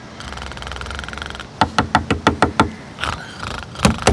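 Fingers tapping on a weathered wooden picnic-table plank: a short rattling buzz, then a run of about six quick, sharp knocks, and a second run near the end.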